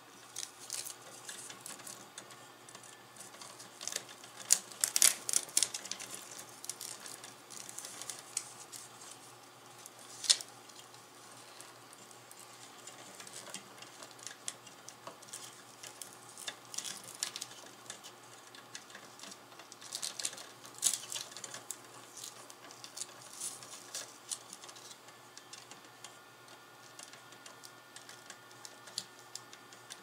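Scattered light clicks, taps and rustles of hands working on computer hardware in an aluminium open-air mining-rig frame. The clicks are loudest in a cluster about five seconds in and again about twenty-one seconds in, with one sharp click about ten seconds in.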